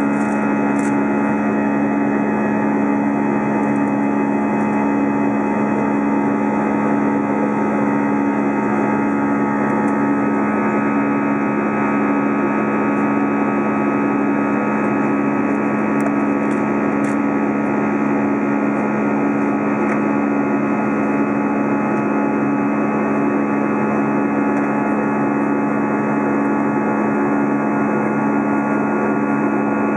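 Steady jet engine and airflow noise inside an Airbus A320's cabin, heard from a window seat by the wing, with a constant low hum under it.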